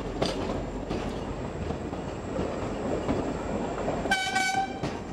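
Train running on rails: a steady rumble of the wheels with a few sharp clacks, and a short blast of the train's horn about four seconds in.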